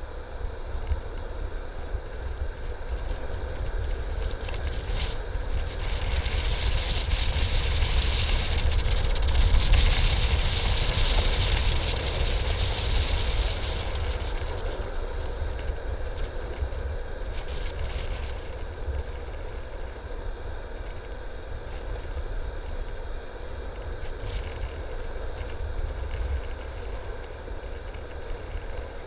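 Wind buffeting the microphone over the steady roar of skateboard wheels rolling fast on asphalt during a downhill run. The rushing hiss swells to its loudest about a third of the way in, then eases back.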